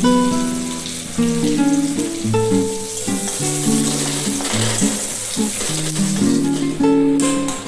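Food frying in a pan with a steady sizzle, under background music of plucked guitar notes.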